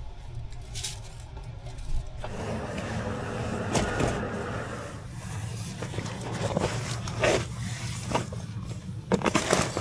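A car running with a steady low hum, with a stretch of hiss from about two to five seconds in and a few short knocks, several of them close together near the end.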